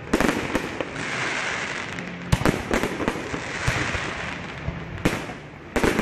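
Fireworks display: sharp bangs of bursting shells, several in quick clusters every second or two, with a steady crackling hiss between them.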